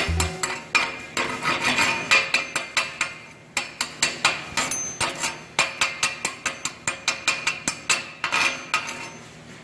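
Chipping hammer striking a stick-welded steel plate joint in quick, even taps, about four a second, with a brief pause near the middle: slag being knocked off the weld bead.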